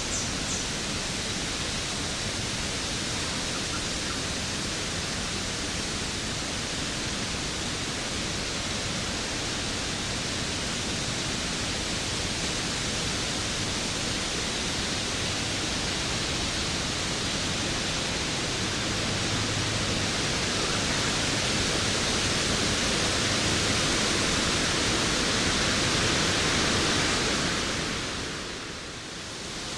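Waterfall: a steady, even rush of falling water that swells slightly, then dips sharply for a moment near the end before coming back.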